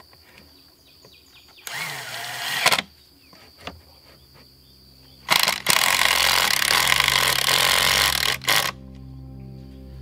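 Cordless power driver running screws into pressure-treated lumber of a stair stringer: a short burst about two seconds in, then a longer run of about three seconds from about five seconds in, with a steady low hum underneath in the second half.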